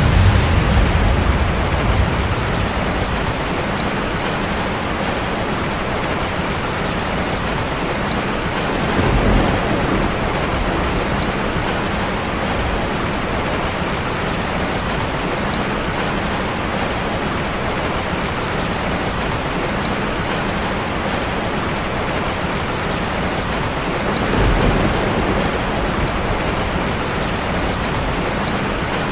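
Steady heavy rain, with low rolls of thunder at the start, about a third of the way in, and again near the end.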